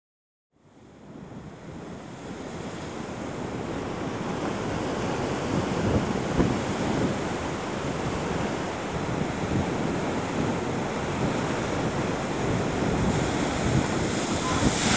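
Rough surf breaking and washing against a rocky shore, with wind. It fades in from silence about half a second in and builds over the first few seconds, with the heaviest wave crashes about six seconds in.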